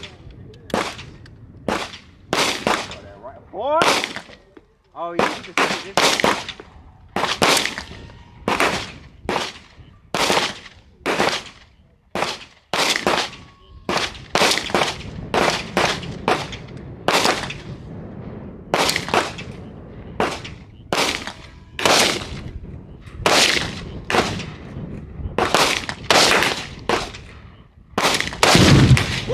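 Gunshots fired one at a time at a steady pace, a little faster than one a second, each trailing off in a short echo.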